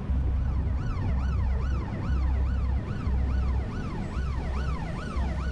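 Emergency vehicle siren wailing, sweeping quickly up and down about twice a second, starting about half a second in. Underneath it, background music with a low pulsing bass.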